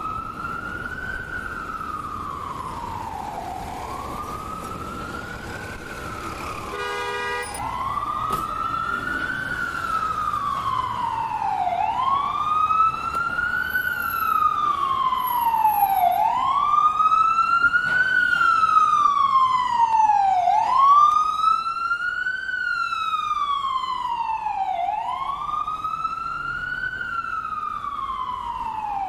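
Ambulance siren on its wail setting: a slow rise and fall in pitch, repeating about every four seconds, growing louder toward the middle and easing off a little near the end. A brief horn-like tone sounds about seven seconds in.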